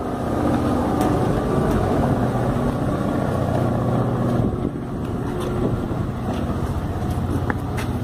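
A loud, steady low rumble with a faint hum, like a motor running nearby, with a few faint clicks over it.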